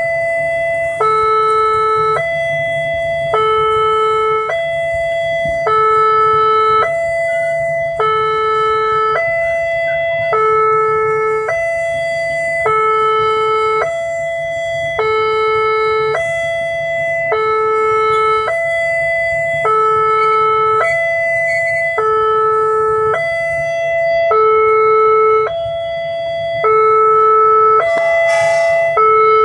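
Indonesian railway level-crossing warning alarm sounding continuously, an electronic two-tone chime alternating evenly between two notes while the barrier is down for a passing train. Under it runs the steady low rumble of the passenger train rolling over the crossing.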